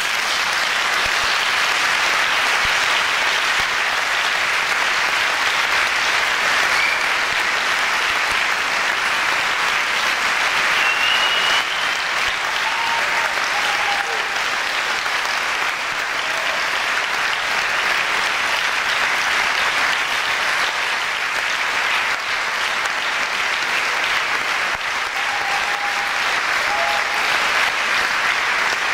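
Audience applause: a large crowd clapping steadily and densely.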